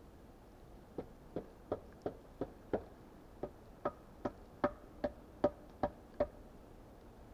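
A quick run of about fourteen sharp knocks on wood, roughly two and a half a second, getting a little louder, the later ones with a short ringing tone.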